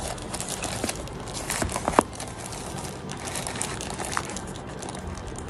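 Thin plastic wrapping around a drone rustling and crinkling as it is handled, a scatter of small crackles with one sharper click about two seconds in.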